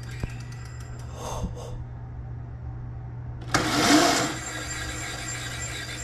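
Electric motor of a Razor MX400 mini bike converted to a 48-volt 2 kW kit, spinning the raised rear wheel through the stock chain in one short throttle burst about three and a half seconds in, a loud whir that rises briefly and dies away. Before it come a click and a few light ticks, over a steady low hum.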